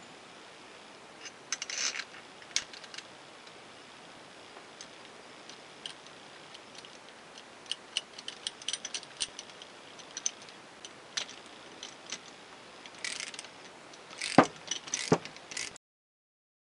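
Light, irregular metal clicks and taps from a steel V-band clamp being fitted around a turbocharger's turbine-housing and center-section flanges and its nut threaded on by hand. Two louder metal knocks near the end, then the sound cuts off abruptly.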